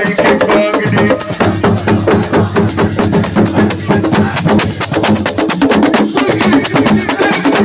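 Assiko band playing live: fast, driving hand drumming with rattling shaker-like percussion in a steady, dense rhythm.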